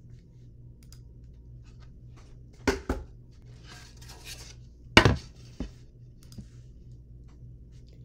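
A wooden cutout and other things being handled on a tabletop: a quick double knock, some rustling, then a louder knock about five seconds in and a lighter one just after. A faint low hum runs underneath.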